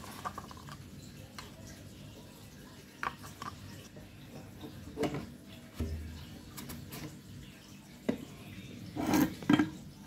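Handling sounds of PVC plumbing fittings: a grey plastic clean-out plug is turned and fitted onto the end of a 3-inch PVC pipe, with scattered light clicks and knocks of plastic on plastic. The loudest cluster of knocks and scrapes comes near the end, as a tin of PVC cement is handled. A low steady hum runs underneath.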